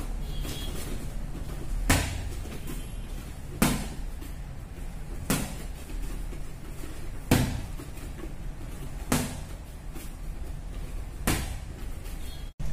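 Boxing gloves smacking against gloves and guard as jabs are thrown and parried in partner drilling: six sharp slaps, about one every two seconds, over a steady low hum.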